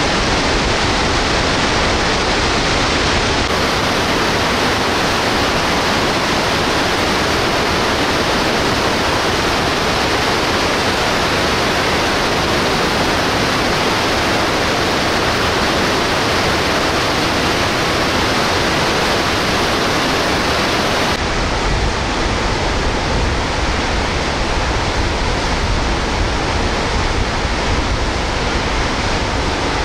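Snoqualmie Falls in flood: a loud, steady rush of floodwater pouring over the falls and crashing into the plunge pool. The deep rumble drops away a few seconds in and comes back about two-thirds of the way through.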